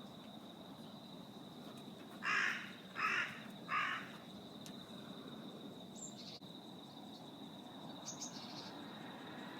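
A crow cawing three times in quick succession, starting about two seconds in, each caw short and harsh.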